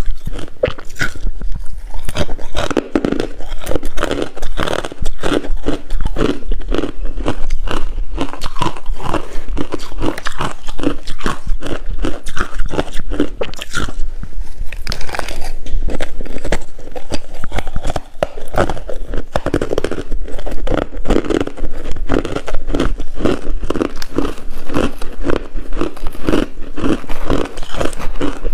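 A person biting and chewing coarse-grained crunchy ice: a loud, continuous run of crisp crunches, several a second.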